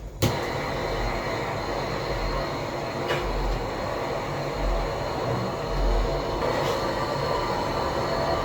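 Steady mechanical running noise with a faint high whine and an uneven low rumble underneath.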